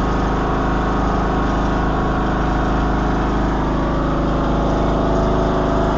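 John Deere 102 lawn tractor's 17 hp Briggs & Stratton engine running steadily, freshly cold-started after its spring service.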